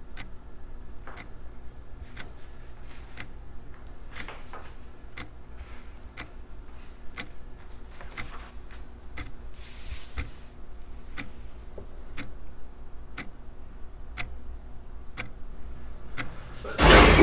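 A clock ticking steadily about once a second, with faint scratching of a pencil on paper now and then. A sudden loud, low thud comes near the end.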